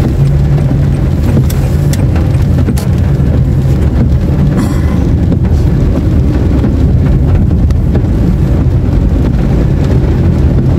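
Steady low rumble of a moving car's engine and tyres, heard from inside the cabin while driving on a wet road, with a few faint ticks.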